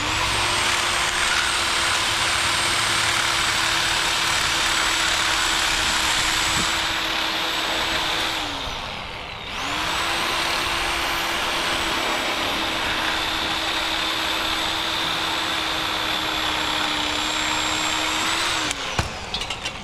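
Reciprocating saw with a pruning blade running as it cuts through a tree branch. The motor holds a steady pitch, winds down and briefly stops about nine seconds in, then starts up again, runs at the same pitch and stops near the end.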